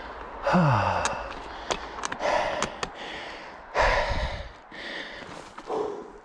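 A mountain biker's heavy breathing: about four loud breaths, one every second and a half or so, the first with a short falling voiced groan. He is out of breath and tiring from the ride. A few sharp clicks come between the first breaths.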